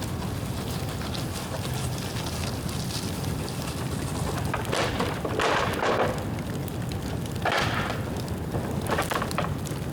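Bonfire of dry dead bamboo burning: a steady low rumble with scattered crackling, and three louder hissing surges, two around the middle and one near the end.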